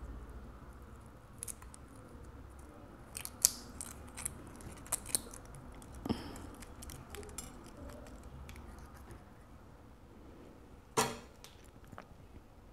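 Shell of a boiled balut duck egg being cracked and picked off by fingers: scattered small cracks and clicks, a cluster of them a few seconds in and a louder crack near the end.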